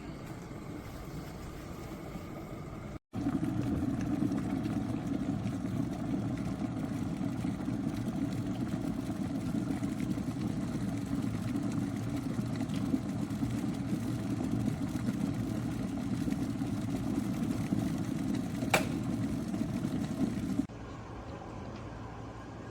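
Water in a 1500 W borosilicate-glass electric kettle at a rolling boil, a steady loud rumbling churn. There is a sharp click about 19 seconds in, and the rumble drops off suddenly about 21 seconds in.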